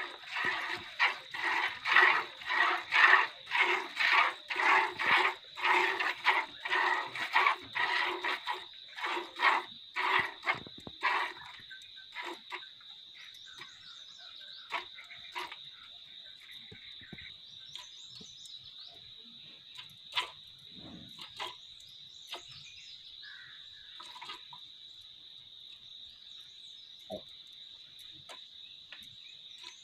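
Hand-milking a cow: milk squirting in rhythmic jets into a plastic bucket, about two squirts a second. About eleven seconds in, the squirts become faint and scattered. A steady high-pitched tone runs underneath.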